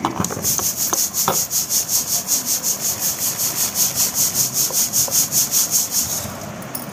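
Raw rice grains hissing and rattling in a perforated stainless-steel sieve, shaken back and forth about six or seven times a second. The broken grains sift through the holes into a plastic tub. The shaking stops about six seconds in.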